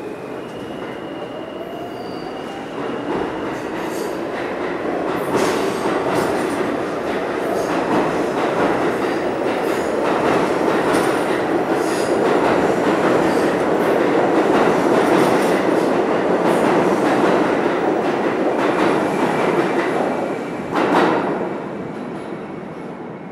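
R46 subway train pulling out of an underground station. A motor whine rises in pitch as it starts to move, then grows into a loud rumble with the clatter of wheels over the rails as the cars pass. There is one sharp clank near the end, and the sound fades as the train leaves into the tunnel.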